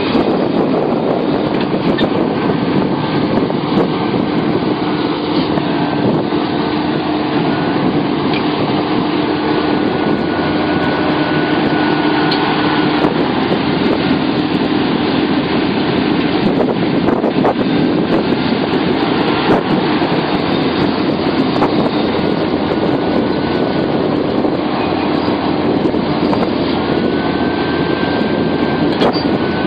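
Sumitomo SH700LHD-5 excavator's diesel engine running steadily under load, with a hydraulic whine that drifts gently up and down in pitch.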